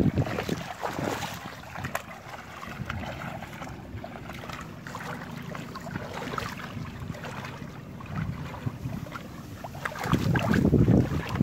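Two people wading through shallow water, splashing and sloshing, with wind rumbling on the microphone and a louder burst about ten seconds in.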